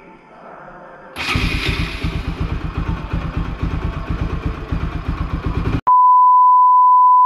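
A Bajaj Pulsar NS200's single-cylinder engine starts about a second in and runs with an even, rapid firing pulse. Near the end it cuts off abruptly, replaced by a steady high-pitched 1 kHz test-tone beep.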